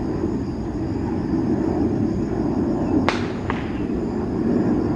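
Distant Boeing 737-800's CFM56 jet engines at climb power, a steady low rumble as the airliner climbs away after takeoff. About three seconds in there is a sharp click, then a fainter one half a second later.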